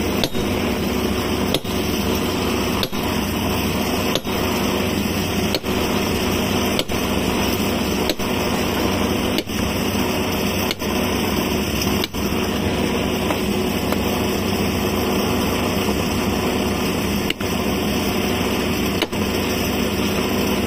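A machine running steadily at the rail-welding joint, a constant drone with a hum under it, broken by short dips about every second and a half.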